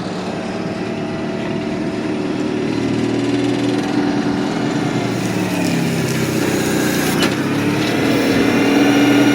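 A motor running steadily with a humming tone that slowly rises in pitch and grows a little louder over the last few seconds.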